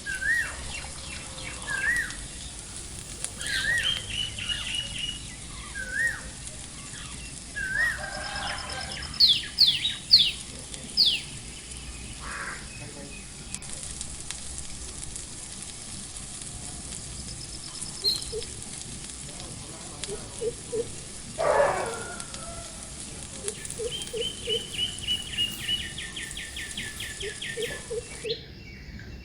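Wild birds calling: a short wavy call repeated about every two seconds, then a few quick falling whistles, and later a fast trill. A steady hiss runs beneath and stops near the end.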